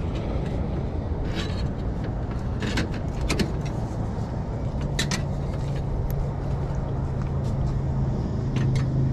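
Steady low rumble of a vehicle engine running, its hum growing stronger near the end. Over it come several sharp metal and glass clinks as a railroad lantern's wire frame, top and amber glass globe are handled.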